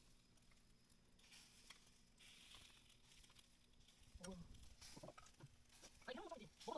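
Near silence: faint room tone with a steady low hum, and a few soft, brief sounds about four seconds in and again near the end.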